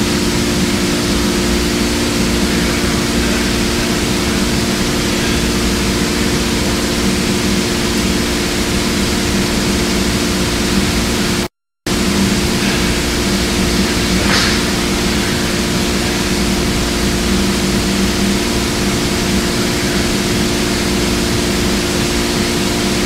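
Thermwood CabinetShop 45 CNC router machining a wooden furniture leg on its rotary axis: loud, steady spindle and cutting noise with a constant hum. The sound drops out briefly about halfway through.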